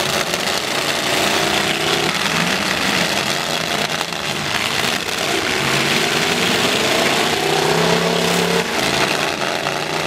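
Several demolition-derby pickup truck engines running and revving at once, their pitch rising and falling, over a dense steady din.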